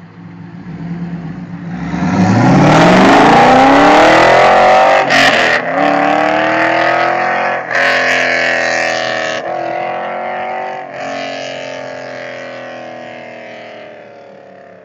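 2000 Pontiac Trans Am's LS1 V8 on BBK long-tube headers, an off-road Y-pipe and an aftermarket cat-back exhaust, accelerating hard from beside the listener. The revs climb steeply, then the engine pulls through several gear changes, each a sudden break and drop in pitch, and it fades steadily as the car drives away.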